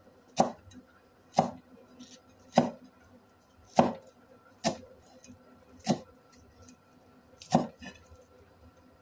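Broad-bladed kitchen knife chopping a green vegetable on a wooden chopping board: seven single chops, unevenly spaced about a second apart, each a sharp knock on the wood.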